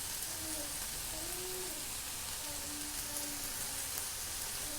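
Stir-fried vegetables and sauces sizzling steadily in hot oil on a high flame as steamed noodles are added to the pan.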